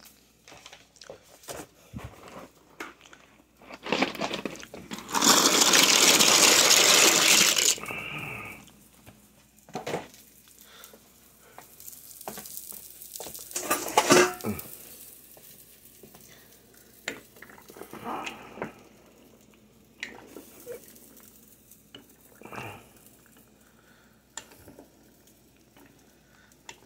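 Stovetop cooking sounds: pots, pans and utensils knocking and clinking, with a loud rushing noise for a few seconds near the start. Near the end a wooden spoon stirs pasta in a pot of water.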